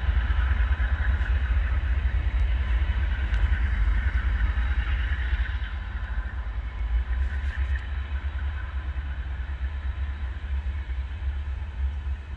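Low, steady rumble of diesel freight locomotives, with a rushing hiss over it that fades out about six seconds in.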